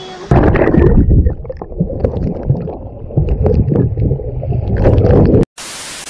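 Muffled, loud gurgling and sloshing of sea water against the camera microphone, with the high end dulled. Near the end it cuts off suddenly into a short burst of TV-static hiss.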